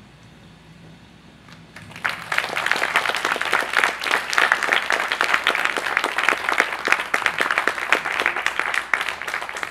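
Audience applauding, breaking out suddenly about two seconds in after a brief quiet.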